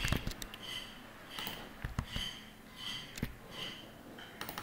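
Faint computer mouse clicks, with soft breath sounds close to the microphone repeating about every three-quarters of a second.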